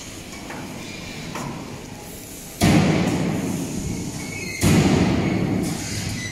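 Two sudden heavy thuds about two seconds apart, over a low background rumble. Each booms and dies away slowly over a couple of seconds.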